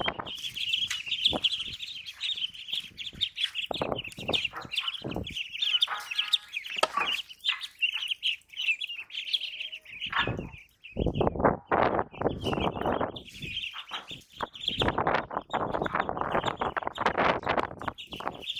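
A flock of ducklings peeping, a rapid, high-pitched chorus of short calls that breaks off for a few seconds midway and then resumes. Scuffs and steps on the concrete floor, heaviest in the second half.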